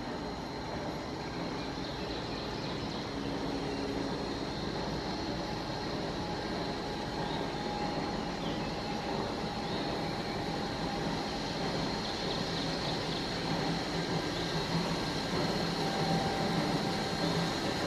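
Viscose Company 0-4-0 steam locomotive No. 6 approaching under steam, its distant working sound growing slowly louder as it nears.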